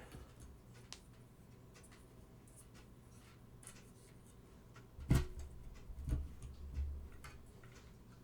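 Small plastic LED light panel and mini tripod being handled and fitted together: faint light ticks, then a sharp click with a low knock about five seconds in and a couple of softer knocks after.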